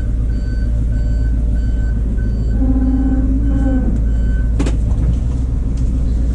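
Truck's back-up alarm beeping about twice a second over the low rumble of the engine, heard from inside the cab. The beeping stops about four seconds in, with a brief low hum just before and a sharp click just after.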